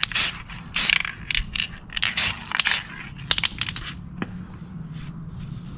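Krylon metallic aerosol spray-paint can sprayed in a series of short hissing bursts, about six or seven over the first three seconds, then stopping.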